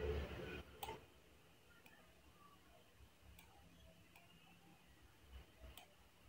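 Faint computer mouse clicks, about five scattered sharp ticks over low steady hiss, with a brief muffled bump at the start.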